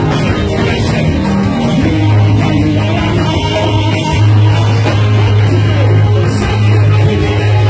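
Loud amplified church praise music with a heavy bass holding long low notes under guitars.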